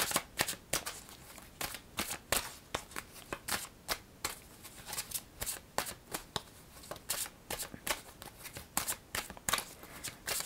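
Lover's Path Tarot deck being shuffled by hand: a run of quick, irregular card flicks and slaps, a few each second.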